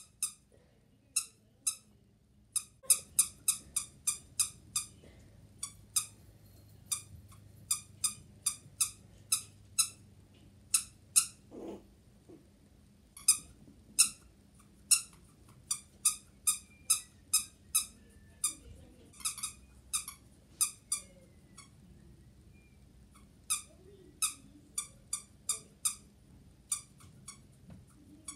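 Squeaky plush dog toy squeezed over and over, giving short high squeaks, sometimes in quick runs of about four a second and sometimes singly with pauses between.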